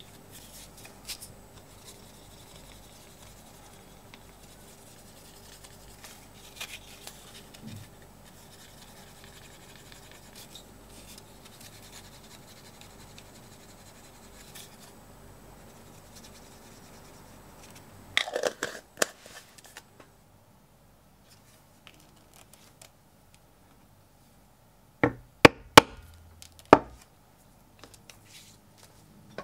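A wooden slicker rubbing along the edge of vegetable-tanned bridle leather to burnish it, a soft steady friction with faint scratches, followed by a louder burst of scratchy handling about two-thirds of the way through. Near the end come about four sharp knocks in quick succession.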